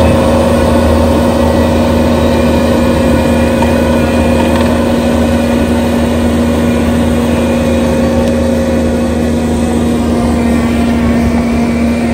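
Skid-steer loader running a forestry mulcher attachment: the engine and the hydraulically driven rotor head run steadily under load, with a steady pitched hum over dense grinding noise.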